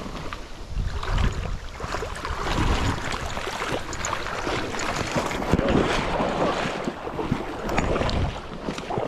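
Wind buffeting the microphone and rustling handling noise, with water sloshing, coming in uneven rushes and deep bumps as an angler wades and works a fly rod and reel.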